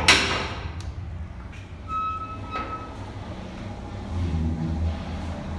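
A sharp metal clank from the steel safe-room door's latch handle as it is thrown, then a low steady rumble like a vehicle running outside through the open door, with a short high squeak about two seconds in.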